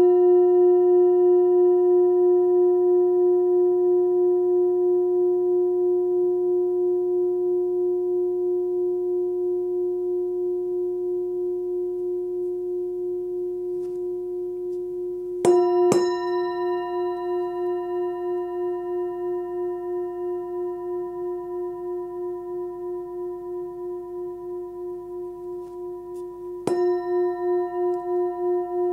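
A 13.5 cm forged singing bowl tuned to about 357 Hz (F) rings with a steady tone and a slow pulsing wobble, fading gradually. It is struck with a padded mallet twice in quick succession about halfway through and once more near the end, and each time the ring swells back up.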